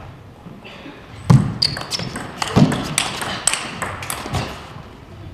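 Table tennis rally: the ball clicks in quick succession off the bats and the table, mixed with a few heavy low thuds.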